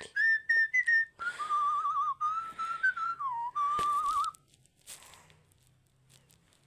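A whistled tune: short rising chirps, then a warbling, trilled whistle that stops about four and a half seconds in.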